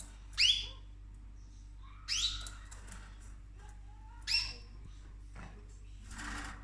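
Cockatoo giving three short rising calls about two seconds apart, the first the loudest, followed near the end by a longer, noisier rasping sound.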